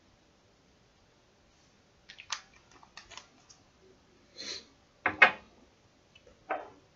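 Near silence for about two seconds, then a scatter of small clicks and taps, the sharpest about five seconds in, as perfume bottles and a dropper are handled to add drops of bergamot oil.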